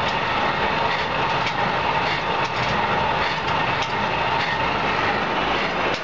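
Continuous charcoal carbonization machinery running, with its discharge screw conveyor and motor making a steady mechanical noise and scattered light clicks.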